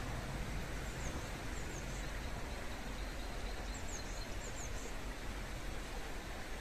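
Steady outdoor background noise, mostly a low rumble with a hiss, with faint high bird chirps: a few short downward-sliding notes about a second in and again around four seconds in.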